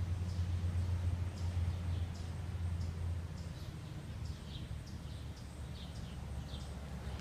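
Short, high chirps, each falling in pitch, repeating about twice a second over a steady low rumble that eases off about halfway through.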